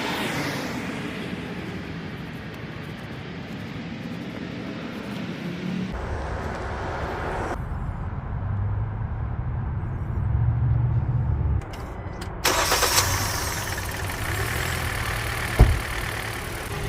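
Small four-cylinder car engine running at idle after an oil change, heard in several short clips cut together, with a sharp click near the end.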